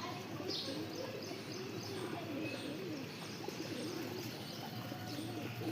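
A flock of pigeons cooing all at once, many overlapping coos in a continuous chorus, with scattered high chirps of other small birds mixed in.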